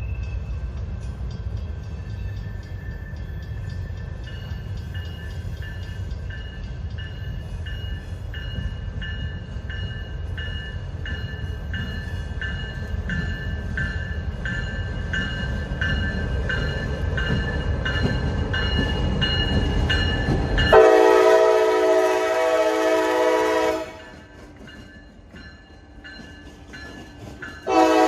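Freight train rumbling past with a railroad crossing bell ringing steadily, about one strike every 0.6 s. Then a CSX locomotive's air horn blows a chord for about three seconds, stops, and sounds again near the end.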